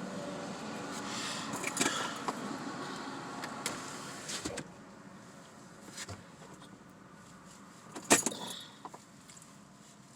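Passing cars and trucks on a busy highway, heard through a half-open car window: a vehicle goes by in the first few seconds and the noise fades after about four and a half seconds. Short clicks and rustles of handling inside the car, the sharpest about eight seconds in.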